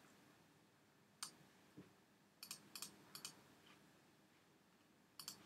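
Half a dozen sharp, scattered clicks of computer controls being worked during image editing.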